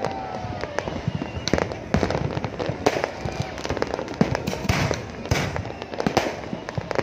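Aerial fireworks bursting: many irregular, overlapping bangs and crackles, some near and sharp, others more distant.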